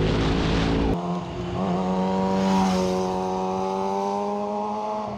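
Sport motorcycle engine running at fairly steady revs. About a second in, the rushing noise and low rumble drop away abruptly, leaving a cleaner, steady engine note that rises slightly for a moment and then holds.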